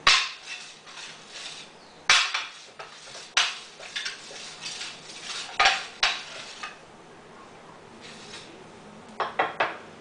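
Aluminum plate clattering and scraping on a glass sheet as a large neodymium block magnet is moved beneath the glass, with sharp clinks every couple of seconds and scraping between them. Near the end, a few quick knocks as the magnet is set down on top.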